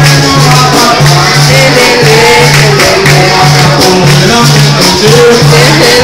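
Capoeira roda music: a steady, loud low two-note pulse with a shaker (berimbau with caxixi), tambourine-like pandeiro, and group singing.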